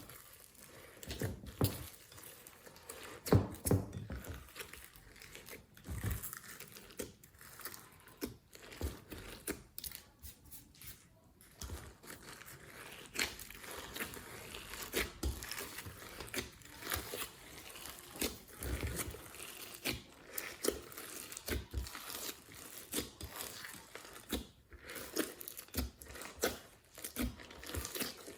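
Glossy slime with clay and foam mixed in being squeezed and kneaded by hand, giving irregular sticky crackles, pops and crunches.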